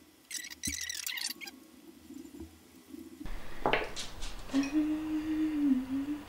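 Short scratchy rustles of hookup wire being handled and worked inside the amplifier chassis. About four and a half seconds in, a person starts humming a tune on a steady, slightly wavering note.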